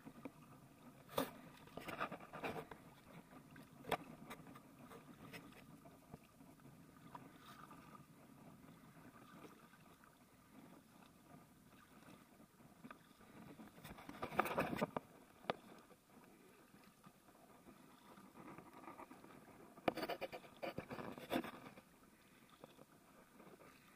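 Paddle strokes and water lapping and splashing against an inflatable tandem kayak on calm sea, with occasional sharp splashes and knocks. They are loudest about 15 seconds in and again around 21 seconds in.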